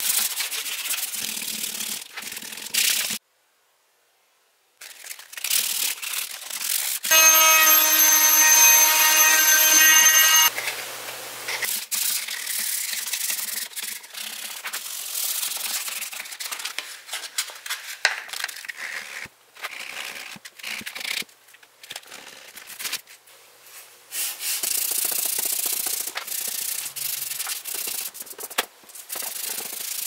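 Sandpaper rasping back and forth over the rigid plastic of a repaired 1966 Chrysler Newport steering wheel, hand sanding in a string of short clips separated by brief silent gaps. For about three seconds, starting about a quarter of the way in, a steady machine whine with several overtones sits over the rasping.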